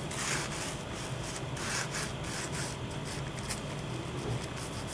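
Foam sponge brush rubbing over a wet, acrylic-painted canvas in repeated short strokes, spreading the black base coat.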